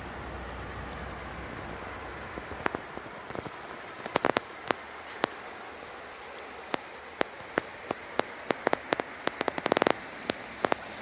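Raindrops hitting a surface close to the microphone: scattered sharp ticks that start a couple of seconds in and come more and more often, over a steady hiss.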